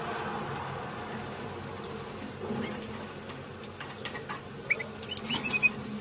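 Canary nestlings giving a few thin, short, high squeaky peeps, mostly in the second half, with some small clicks over a steady low hum.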